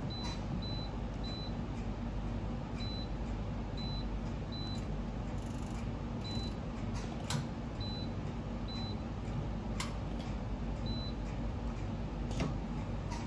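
Key-press beeps from a wax injector's Omron touchscreen control panel as settings are tapped in: about ten short, high beeps at uneven intervals, over a steady low hum, with a few sharp clicks.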